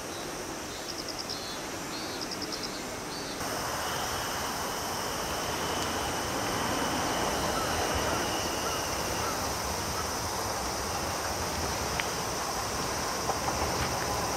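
Insects chirping in short repeated groups over steady outdoor noise. About three seconds in, a broad steady noise from the standing JR West 125-series electric railcar takes over, and a few sharp clicks near the end come as it begins to move off.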